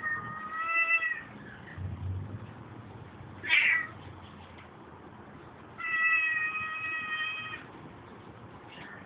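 Cat meowing three times: a call of about a second at the start, a short sharp cry about three and a half seconds in, and a long, level, drawn-out call of nearly two seconds about six seconds in.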